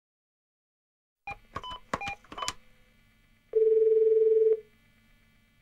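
Telephone keypad dialing tones, a quick run of about six beeps, followed about a second later by one steady ringback tone lasting about a second as the call rings through.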